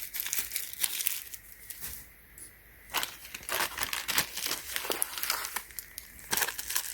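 Packaging crinkling and rustling in a run of quick crackles as the dent-removal tools are handled and unwrapped, dropping off briefly about two seconds in.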